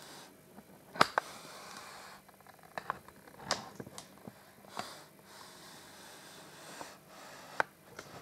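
Faint, irregular clicks and knocks, about half a dozen, over soft rustling noise: handling and movement sounds of a handheld camera in a small bare tiled room.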